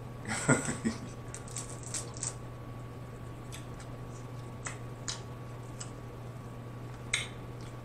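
Dungeness crab shell being picked apart by hand: small cracks and clicks scattered through, with a cluster in the first second and near two seconds in. A steady low hum runs underneath.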